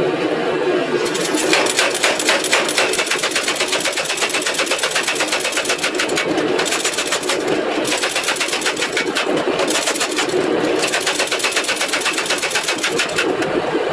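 Power hammer pounding a glowing hot steel billet in a rapid, even run of blows that stops for short moments several times, over a steady low hum.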